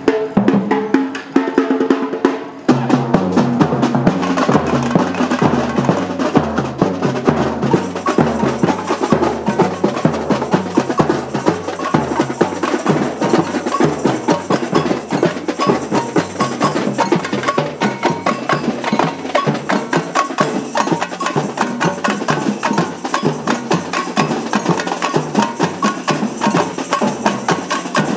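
Batucada samba percussion ensemble playing a driving samba groove: deep surdo bass drums under sharp, clicking tamborim strikes and snare rolls. The full groove comes in about three seconds in and then holds steady.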